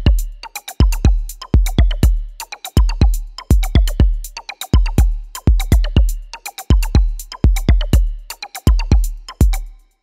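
Background music with a heavy, fast drum beat.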